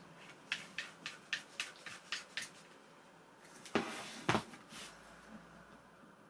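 Handling of an airsoft pistol and its screw-on suppressor: a run of about eight light clicks over two seconds, then two louder knocks about half a second apart.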